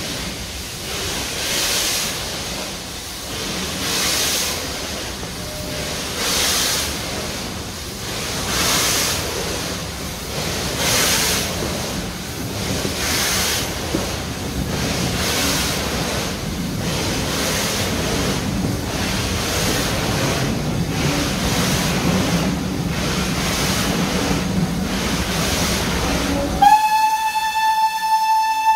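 Steam locomotive pulling a train away, its exhaust beats slow at first, about one every two seconds, then quickening as it runs into a tunnel. Near the end a steam whistle blows one steady note for about two seconds, the loudest sound here.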